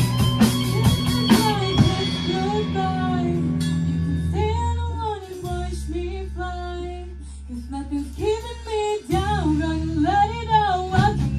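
Teenage rock band playing live: the drums drop out about two seconds in, leaving a girl singing the lead over held electric guitar and bass chords, and the full band with drums comes back in near the end.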